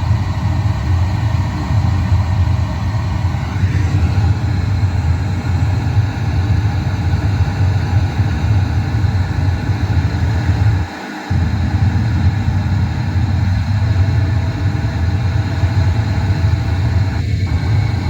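Steady, bass-heavy test noise played through a car sound system while it is being tuned. The bass cuts out for a moment about 11 seconds in, and short gaps in the mid-range follow near the end.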